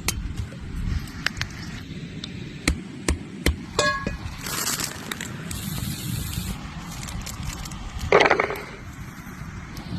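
Outdoor cooking sounds: a run of sharp clicks and knocks of utensils and food being handled, two short stretches of hissing a little after the middle, and one loud burst a little after eight seconds, over a low rumble.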